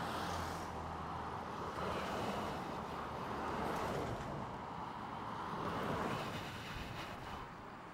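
Wind rushing over the microphone while riding an e-bike, with a steady road rumble underneath; it swells and eases every couple of seconds.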